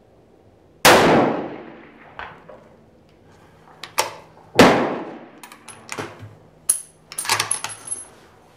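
Two shots from a Remington 700 bolt-action rifle in 9.3x62, about four seconds apart, each echoing as it dies away. Quick metallic clicks and clinks follow the second shot.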